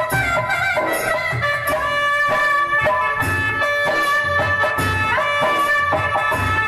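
Instrumental interlude of a Hindi devotional song: a held, sliding melody line over a regular drum beat, with no singing.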